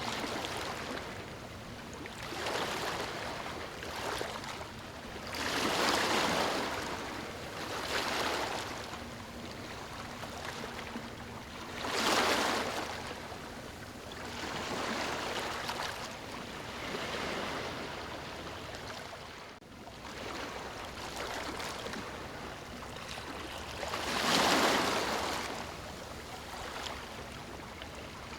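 Calm waves washing onto a sandy beach: a soft rushing hiss that swells and fades every few seconds as each wave breaks and draws back, the strongest about six, twelve and twenty-four seconds in.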